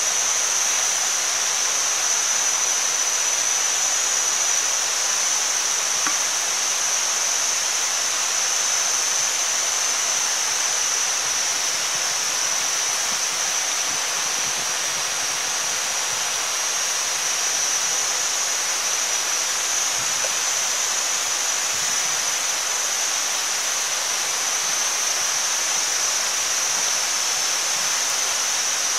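Meat, pork skin and an egg sizzling in their own fat on a hot stone over a fire: a steady hiss.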